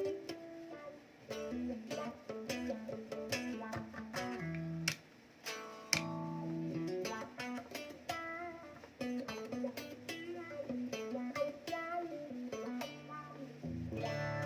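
Electric guitar played through a Zoom G1Xon multi-effects pedal: a string of picked single notes and short phrases, with a fuller, lower chord ringing in near the end.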